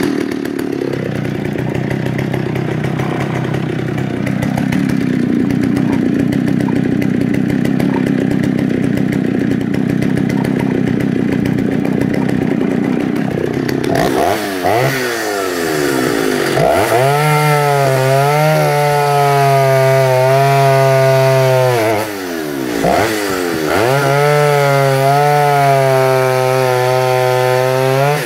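Vintage Stihl 08S two-stroke chainsaw, with a 17-inch bar and new chain, running at full throttle while cutting through a solid hardwood log. The engine note drops and climbs back twice, about halfway through and again about three-quarters of the way through, as the saw pulls through the wood.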